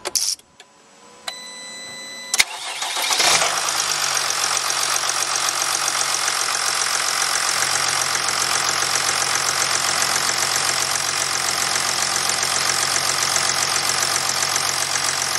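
Jeep Grand Cherokee CRD's 3.0-litre V6 diesel remote-started on a cold start: a sharp click, then the starter cranks briefly about two and a half seconds in and the engine catches, settling into a steady idle around 900 rpm.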